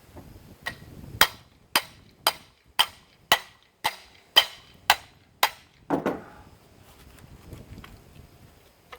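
Hammer striking the metal of an electric lawn mower motor to drive out a rotor held fast by a rusty bearing: about ten sharp, ringing blows, roughly two a second, then a single duller clunk about six seconds in.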